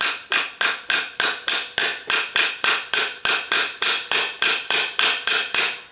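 Small claw hammer tapping rapidly and lightly on the end of a metal rod, a steady run of about four metal-on-metal taps a second that stops shortly before the end. The taps drive a tiny part into a hole at the front of an AR-15 upper receiver's barrel assembly, pressing it in flush.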